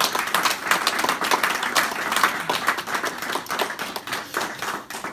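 A small group of people clapping and applauding, many overlapping hand claps, easing off slightly near the end.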